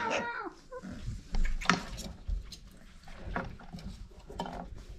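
Five-week-old red nose pit bull puppies moving and playing, with scattered light clicks and soft thumps. A puppy's whine trails off at the very start.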